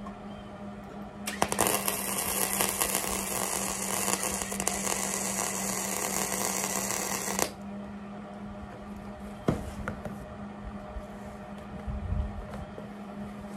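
Wire-feed welder arc crackling for about six seconds while tack-welding steel onto the skid, then cutting off suddenly. A steady low hum runs under it throughout, and a single click comes later.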